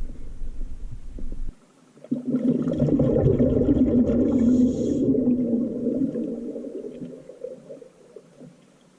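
Underwater burbling from a scuba diver's exhaled bubbles. It starts about two seconds in and fades away over several seconds.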